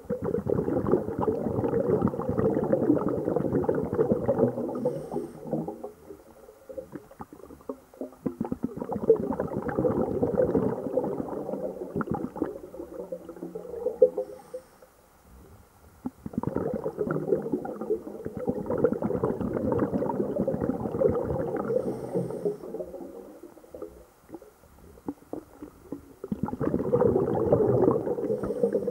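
A scuba diver's exhaled bubbles crackling and rumbling, heard underwater, in long breaths of about five seconds each. Each breath ends with a brief faint hiss from the regulator on the inhale, and the cycle repeats four times.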